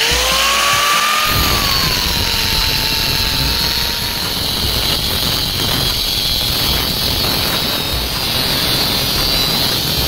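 Angle grinder with an abrasive cut-off disc cutting through a steel angle bar, with a steady grinding hiss. The motor's whine rises over the first second, then drops and holds lower as the disc bites into the steel.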